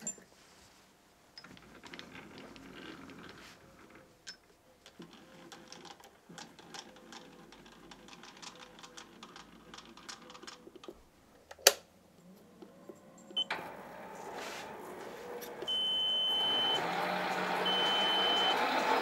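Scattered handling clicks and one sharp click while a Sieg lathe is set up, then its motor starts about two-thirds of the way in and the four-jaw chuck spins up, running steadily. Two short beeps sound near the end.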